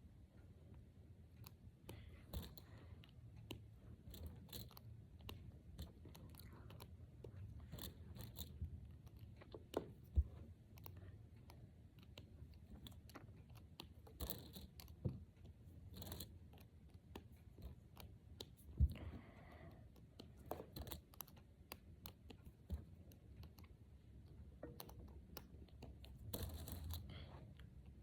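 Small plastic Brain Flakes discs clicking as they are handled and pushed together, in irregular sharp clicks with soft rustling between.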